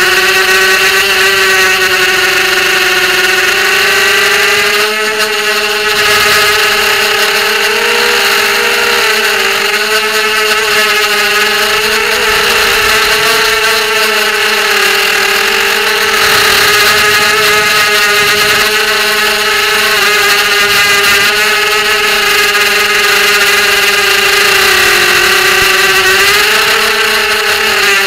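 ZMR250 FPV racing quadcopter's brushless motors and propellers whining in flight, heard close up from the onboard camera. The pitch rises and falls continuously as the throttle changes.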